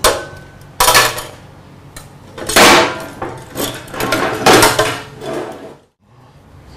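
Steel bar clamps and locking clamps being released and pulled off a welded steel hatch, clanking loudly metal on metal against the hatch and the steel welding table several times. The clatter stops suddenly near the end.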